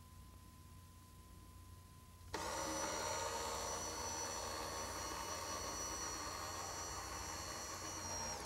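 Escalera electric stair-climbing hand truck's drive running steadily with a high whine as it climbs a step. It starts suddenly about two seconds in, after a faint hum, and cuts off near the end.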